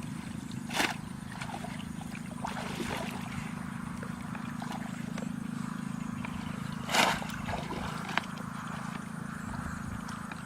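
Two short splashes in water, about six seconds apart, with small splashes and drips between them over a steady low hum.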